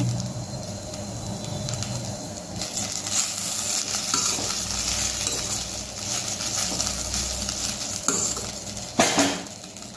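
A spatula stirs and scrapes poha around a stainless steel kadhai, with a soft sizzle from the pan. There is one louder stroke near the end.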